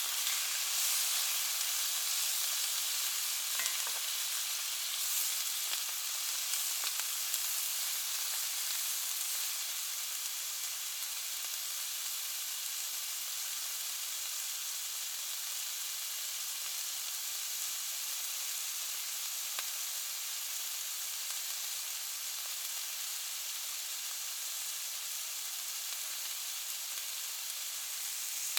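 Meat sizzling and frying in a pan: a steady high sizzle with a few small pops and crackles in the first several seconds, settling to an even sizzle.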